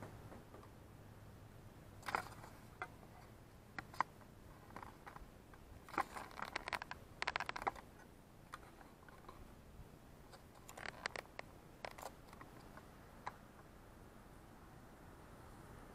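Handling noise: a scatter of short clicks, taps and light scrapes from hands working with gear on a metal-mesh table, bunched about 6 to 7.5 seconds in and again about 11 to 12 seconds in.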